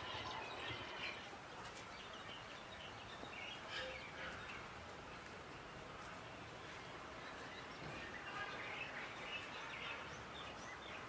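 Faint outdoor street ambience: a steady background hum with birds chirping here and there.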